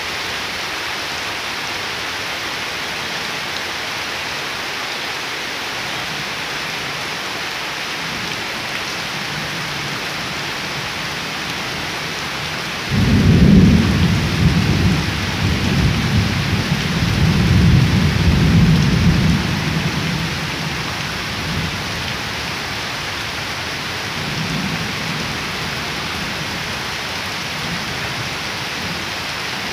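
Steady rain falling on puddled ground and leaves. About halfway through a deep rumble of thunder breaks in suddenly, rolls on for several seconds and fades, and a fainter rumble follows near the end.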